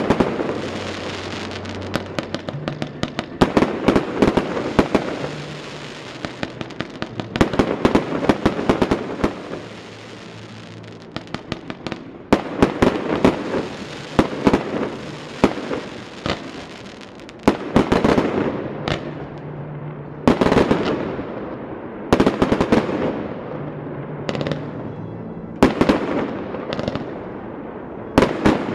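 Fireworks display: shells bursting in quick clusters of loud sharp bangs every second or two, with dense crackling between them.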